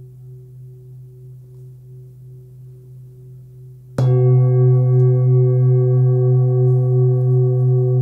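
Forged Full Moon singing bowl, 26.5 cm, tuned to about 130 Hz. Its low hum lingers quietly at first, then the bowl is struck about halfway through and rings loudly with many overtones over the deep fundamental, pulsing slowly as it sustains.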